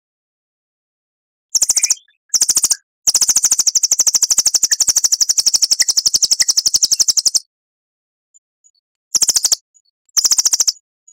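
A songbird's fast, high-pitched rattling trill, used as tutoring song ('nembak', a long shooting call), in separate bursts: two short ones, a long one lasting about four seconds, then two more short ones.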